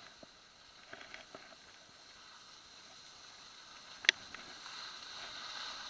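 Skis in a snowplough sliding and scraping over packed snow, a steady hiss that grows louder near the end, with a single sharp click about four seconds in.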